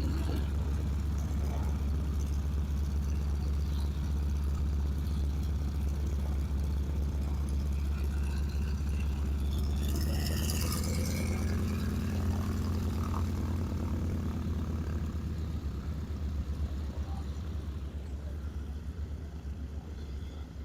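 Piston engine of a vintage propeller airplane running with a steady low drone, fading away over the last few seconds. A brief hissy rush about halfway through.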